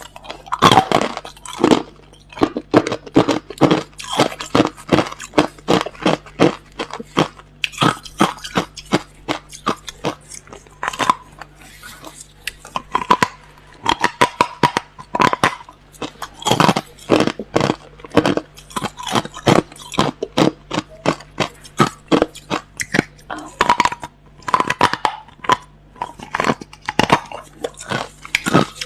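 A person biting and chewing clear, hard crushed ice: a dense, irregular run of sharp, loud crunches, several a second.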